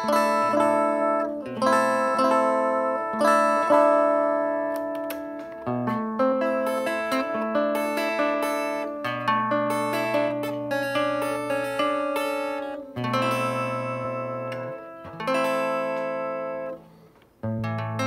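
Electric guitar played clean through a small valve amplifier: a single 12AX7 preamp stage straight into an EL84 power valve, gain sections off. Plucked chords and single notes ring out and decay, with a brief gap near the end before a new chord.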